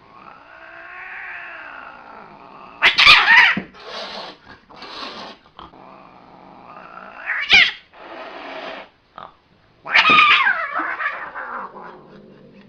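An angry cat yowling: a long, drawn-out wail that rises and falls, then three sudden loud screeches a few seconds apart, with hissing between them.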